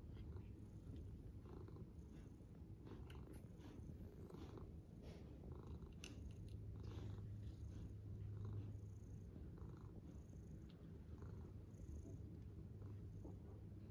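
Domestic cat purring steadily, a faint low rumble that grows a little louder partway through.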